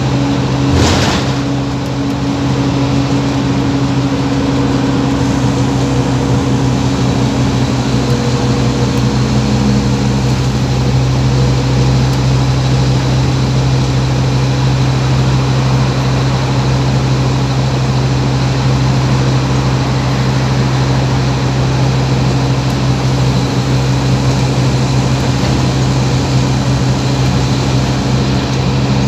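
Scania OmniCity bus's diesel engine and running gear heard from inside the saloon, a steady low drone, with a brief knock about a second in.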